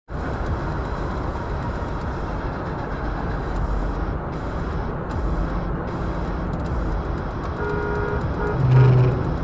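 Steady tyre and wind noise inside a car cruising at about 100 mph on a highway. Near the end a car horn sounds twice, briefly, as another car cuts in close alongside.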